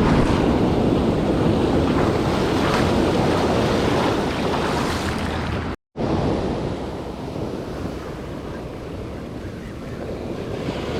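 Ocean surf breaking and washing up the beach, with wind rumbling on the microphone. The sound drops out for a moment about six seconds in and comes back a little quieter.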